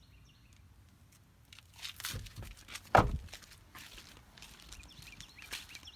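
Handling noises: rustling and scattered clicks, with one sharp thump about three seconds in.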